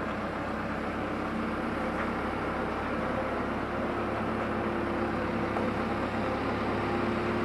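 A vehicle engine running steadily, a low hum with a faint held tone, growing slightly louder near the end.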